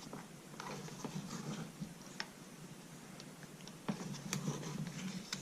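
A stiff leather gun belt and its metal buckle being handled: irregular light clicks, taps and creaks, growing busier near the end.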